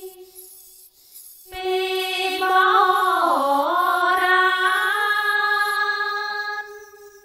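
Background music with long held notes. After a quiet gap of about a second, the music swells back in and a melody line dips and rises in the middle, then fades out near the end.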